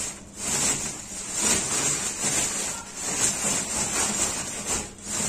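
Woven plastic sack of soil rustling and crinkling in irregular swells as hands grip its rim and scoop soil out of it.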